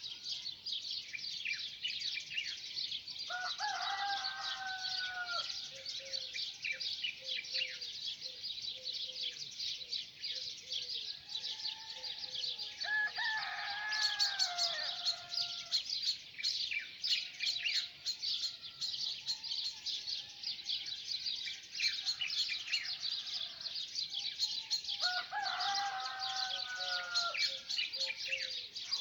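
Many small songbirds chirping densely and without pause. A rooster crows three times in the background, each crow a drawn-out call of two to three seconds.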